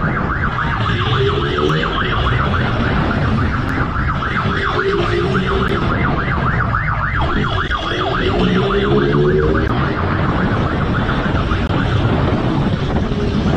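Police siren yelping in a fast, steady warble over a motorcycle engine that revs up several times, with road and wind rush underneath.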